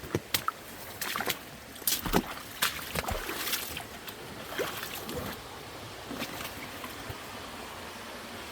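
Rain-swollen mountain creek running fast and steadily, with several sharp clicks and splashes close by in the first half.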